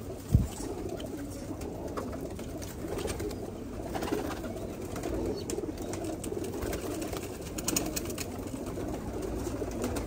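A flock of domestic pigeons in a loft cooing together in a continuous murmur. A single sharp thump sounds just after the start.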